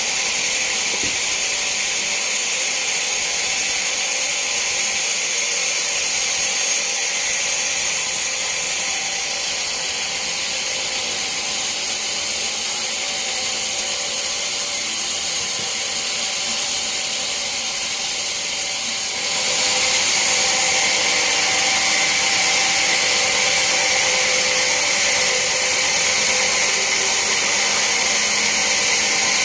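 Sawmill bandsaw cutting through a large teak log, a steady high, hissing whine with a short dip in level about two-thirds of the way through.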